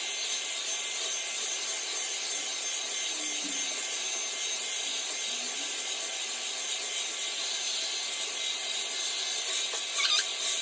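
Philips hot air brush running, a steady rush of blown air from its fan, as it is worked through hair. A brief high squeak near the end.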